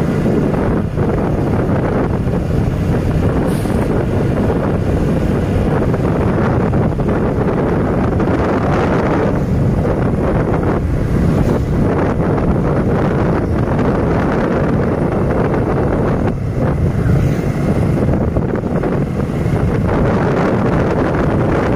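Wind rushing over the microphone of a moving motorcycle, loud and steady, with the motorcycle's engine running underneath at a steady cruise.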